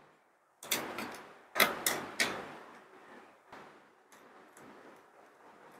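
Sharp clicks and taps of a screwdriver working screws out of a laptop's plastic bottom case, a quick cluster in the first two seconds, then fainter scattered ticks.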